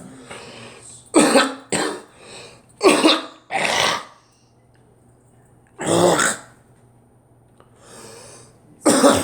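A person coughing repeatedly: a run of four coughs in the first four seconds, then one about six seconds in and another near the end.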